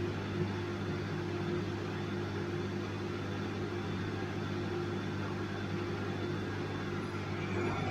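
Bosch washing machine running with a steady, unchanging motor hum.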